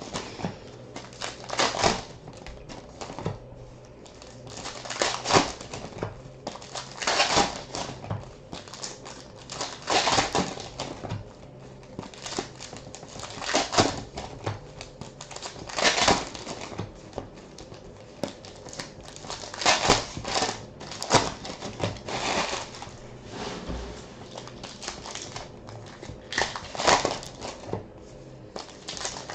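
Baseball card pack wrappers being torn open and crinkled by hand, with a burst of rustling every one to three seconds.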